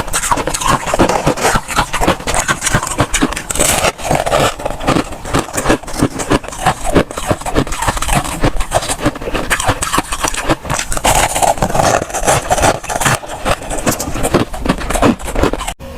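Freezer frost crunching close to the microphone: a dense, unbroken run of crisp crunches that stops abruptly just before the end.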